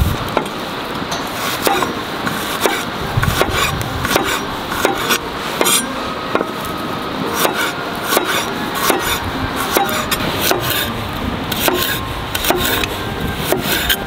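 Large hammered chopper knife chopping garlic cloves on a wooden cutting board: irregular sharp knocks of the blade on the board, one or two a second, over a steady hiss.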